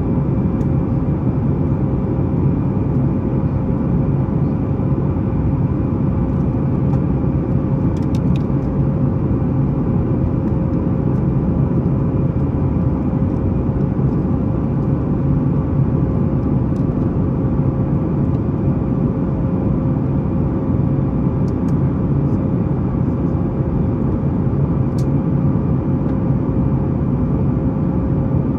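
Steady cabin noise inside a Boeing 737-9 MAX after takeoff: the drone of its CFM LEAP-1B engines and the airflow, with a steady hum over it and a few faint ticks.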